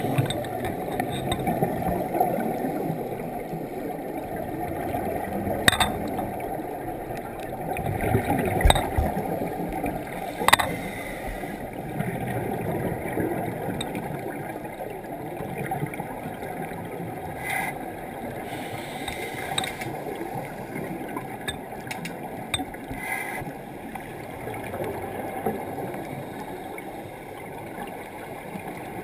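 Muffled underwater sound of scuba diving: a low, churning rumble of regulator exhaust bubbles that swells and fades, with a few sharp clicks.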